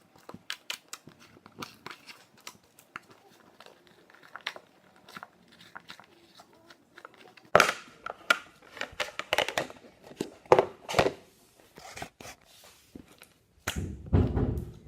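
Clear slime being pulled out of its tub and squished by hand, making a run of sticky clicks and pops that grow louder and more frequent about halfway through. A low rumbling squelch comes near the end.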